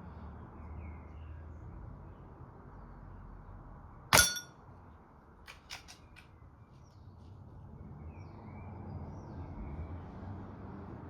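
An air rifle fires once about four seconds in: a single sharp crack with a brief metallic ring. A few faint clicks follow within the next second and a half.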